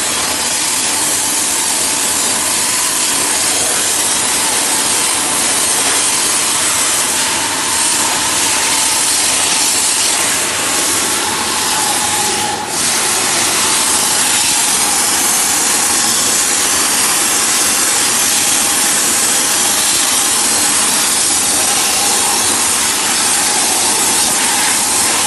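Air spade's compressed-air jet hissing loudly and steadily as it blasts soil away from tree roots and a buried pipe, with a faint steady tone underneath and a brief dip about halfway through.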